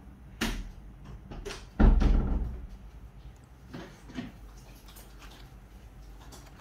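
Clear plastic clamshell takeaway box handled and opened: a few sharp plastic clicks and crackles, the loudest with a low thump about two seconds in, then smaller crackles as a hand picks at the fried seafood inside.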